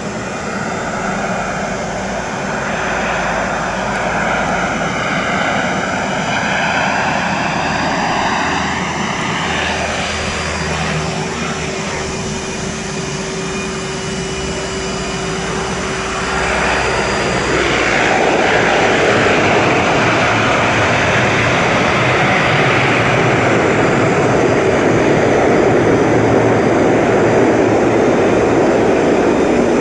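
De Havilland Canada Dash 8-200 twin turboprop, Pratt & Whitney Canada PW123 engines, droning as it flies past low on its landing approach, the sound swirling and phasing as it goes by. About halfway through the engines become louder and stay loud as it runs along the runway.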